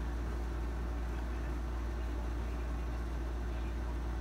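A steady low hum under a faint even hiss: room tone with no distinct event.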